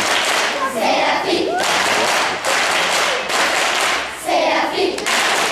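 Many hands clapping steadily, with children's voices briefly rising over it twice, about a second in and near the end.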